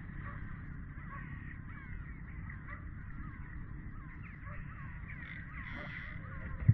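Many birds calling at once: a busy chatter of short rising and falling calls over a low steady rumble, with a dull thump just before the end.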